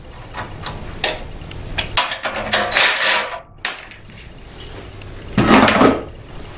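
Workbench handling noise: a few light clicks and knocks with short bursts of rustling, as the top bolts are taken out of a small engine's recoil starter.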